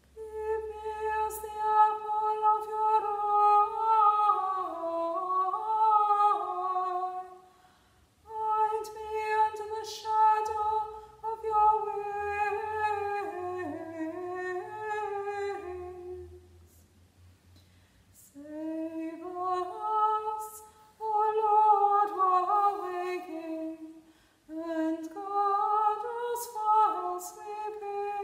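A woman's solo voice singing unaccompanied: a slow melody of held notes that step up and down, sung in several phrases with short breaths between them.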